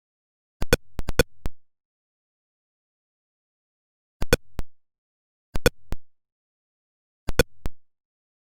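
Atari Pong sound effects: short electronic blips, each group a quick run of two to five, coming four times with dead silence between.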